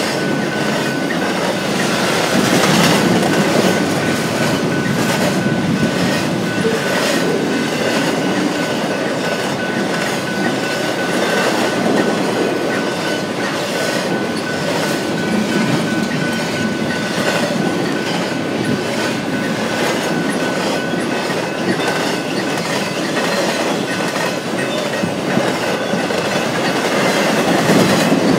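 BNSF intermodal freight train rolling past at speed: a steady rumble of wheels on rail with repeated clickety-clack and a thin, steady high-pitched wheel squeal.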